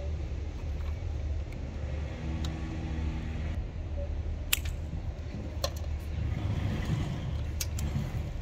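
Steady low rumble outdoors, with a brief hum a few seconds in. Three sharp clicks of pliers and wires being worked into an isolator's terminals come about halfway through, a second later, and near the end.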